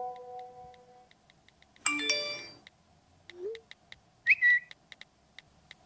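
Sound-design intro: a held chime fades out and a steady ticking, about three ticks a second, runs underneath. A bright metallic clang rings about two seconds in, and a short high chirp sounds about four seconds in.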